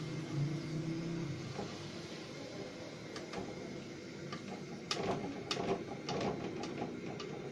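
Potato finger chips sizzling in hot oil in an aluminium karahi, a steady hiss, with a metal slotted spoon clicking and scraping against the pan as the chips are lifted out to drain, the clicks coming mostly in the second half.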